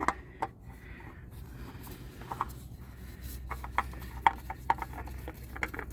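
Spin-on oil filter handled and threaded on by hand: scattered light clicks and rubbing, thickest in the second half, over a steady low hum.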